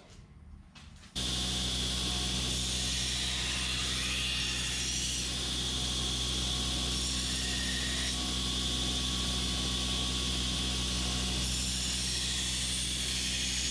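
Grinder running steadily, grinding a hardened and tempered san mai knife blade with 416 stainless cladding: a constant motor hum under a grinding hiss. It starts suddenly about a second in.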